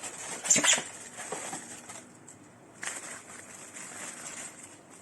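Rustling and handling noise from unpacking the espresso machine: a loud rustle about half a second in, more rustles after it, and another near the three-second mark.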